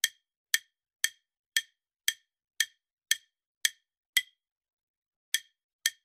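Quiz countdown-timer ticking sound effect: short, sharp, evenly spaced ticks about two a second, with one tick missing a little after four seconds in.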